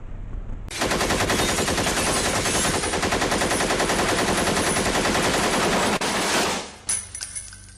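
Automatic gunfire: one continuous rapid-fire burst of about six seconds that cuts off abruptly, followed by a few fainter clicks.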